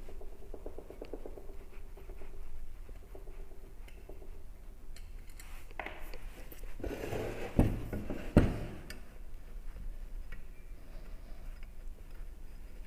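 Light handling of a small DC motor's metal parts on a wooden workbench: small screws and the end plate picked up and set down, and the motor housing shifted. Two sharp knocks under a second apart a little past the middle.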